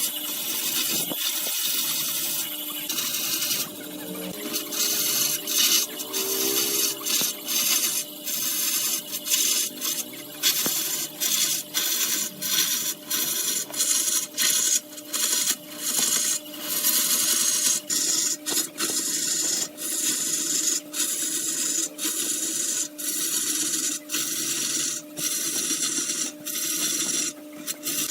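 Wood lathe running with a steady hum while a tool scrapes the spinning wood in many short, repeated passes, each a brief hissing cut.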